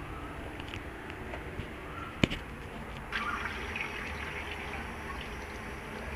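Water running from a sink tap and splashing as a man scoops it over his head and hair, the splashing growing fuller from about three seconds in. A single sharp knock a little over two seconds in.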